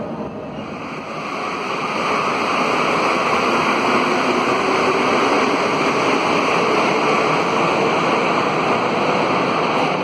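Concarril NS-88 rubber-tyred metro train pulling out of the station, heard from the platform as a steady rushing running noise that swells about a second or two in.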